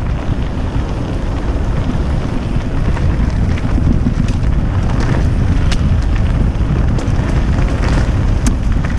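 Wind buffeting the helmet camera's microphone during a fast mountain-bike descent on a dirt trail, a loud steady rumble mixed with the tyres rolling over the dirt. A few sharp clicks and rattles stand out about five to six seconds in and again near the end.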